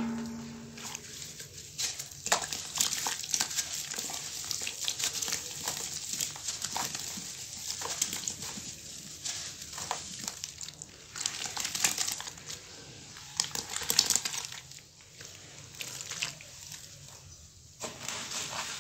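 A water-soaked block of sand and cement crushed by hand in a pan of water: gritty, irregular crunching and crackling with wet squelching and sloshing.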